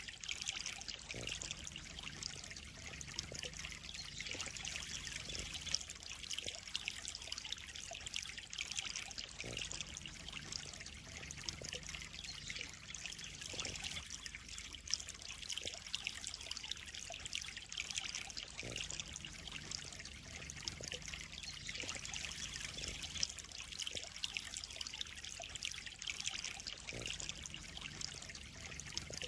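Water trickling and splashing steadily into a koi pond, a continuous bright hiss of falling water with small irregular splashes.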